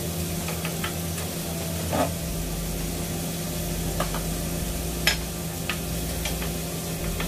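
Diced bacon and onion sizzling in oil in a non-stick pan while a plastic spatula stirs and scrapes through them. Its head knocks sharply against the pan now and then, loudest about five seconds in, over a steady low hum.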